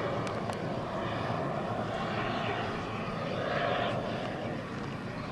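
Jetcat P-220RXi turbine of a large-scale Fiat G91 model jet in flight: a steady distant jet rush that swells a little about three and a half seconds in, then eases off.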